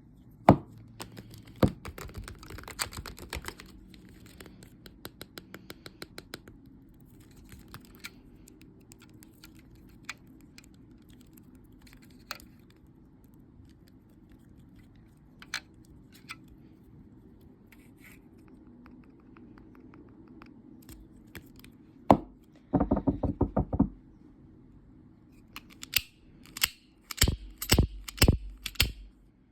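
Toy packaging being handled and opened by hand: scattered taps, clicks and crinkles, with a quick run of snipping strokes about two thirds of the way through and several louder ones near the end.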